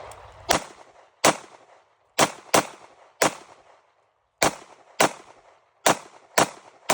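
Glock 19X 9mm pistol firing about ten shots at an uneven pace, roughly one every half second to second, each shot trailing off in echo.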